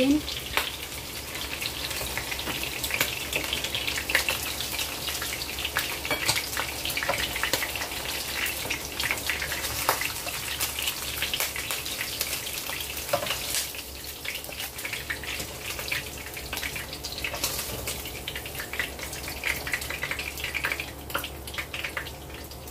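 Pork drumsticks deep-frying in hot oil in a wok: a steady sizzle with many small crackles and pops, a little fainter in the second half.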